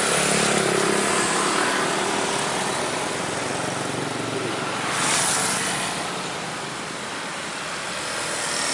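Road traffic: engines running with tyre noise, and a vehicle passing about five seconds in.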